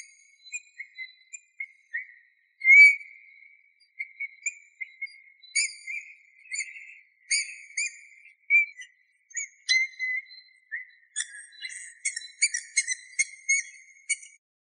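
Eurasian bullfinch singing: a string of short, soft piping whistles near one pitch, mixed with faint high scratchy notes. The song gets denser and busier over the last few seconds.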